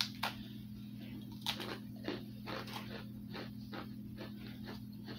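Two people biting into and chewing dry, crisp round tea biscuits: a sharp bite at the start, then a string of irregular crunches, several a second in stretches. A steady low hum runs underneath.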